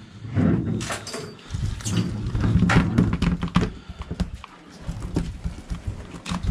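A small bonito is handled on a plastic bait board and deck: scattered knocks, with bursts of rapid tapping from its tail beating against the board, over a low steady hum.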